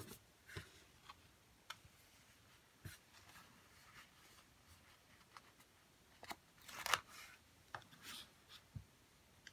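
Faint rustles and light taps of a paper sticker sheet being handled as a sticker is peeled from its backing, the loudest a short rustle about seven seconds in.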